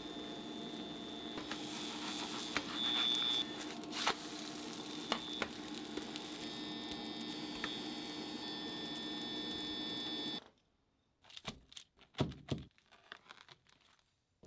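Kimchi pancake batter sizzling in oil in a frying pan, with a steady hum and a high tone under it and a few light clicks of a spatula against the pan. About ten seconds in the sizzle stops, and a knife crunches through the crisp fried pancake onto a cutting board in several short knocks.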